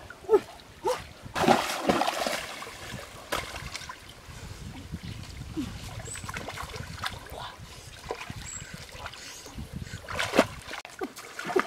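Stream water splashing and sloshing as a hooped mesh fish trap is hauled and shaken in the shallows: a few sharp splashes, the longest about a second and a half in, over running, trickling water.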